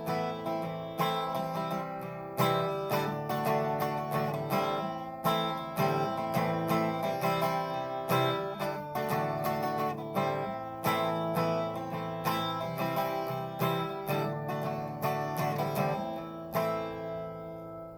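Acoustic guitar music, plucked and strummed notes in a steady pattern, fading out near the end.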